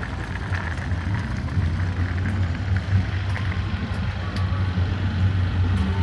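Car engine running with a steady, low, uneven rumble.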